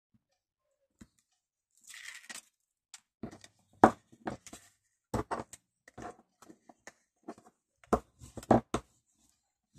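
Scrapbooking paper being handled on a work surface: a short tearing rasp about two seconds in, then a run of irregular sharp taps and knocks.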